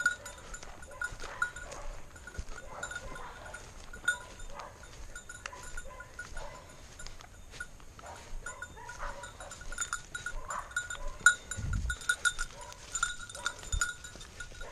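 Small bell on a hunting springer spaniel's collar jingling in irregular pulses as the dog works through brush, over the rustle of dry undergrowth. A dull thump about three-quarters of the way through.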